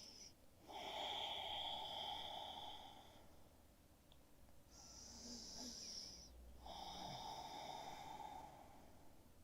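Faint, slow, deep breaths close to the microphone: a long breath about a second in, then another pair of breaths in and out from about five seconds in.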